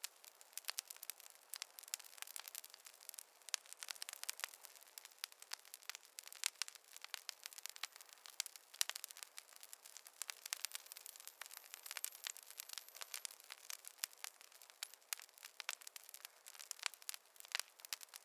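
Wood fire crackling: a dense, irregular run of small sharp pops and snaps over a faint hiss, with no low rumble.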